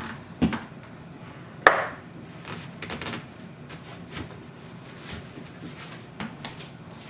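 Plastic and metal parts of a play yard knocking and clicking as they are handled and fitted together: a sharp knock about half a second in, a louder one just under two seconds in, then lighter taps.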